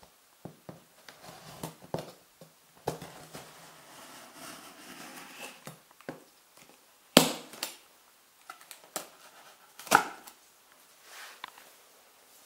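A kitchen knife slitting open the seams of a cardboard box, with short scraping and tearing strokes and scattered clicks. Two sharp knocks, about three seconds apart past the middle, are the loudest sounds.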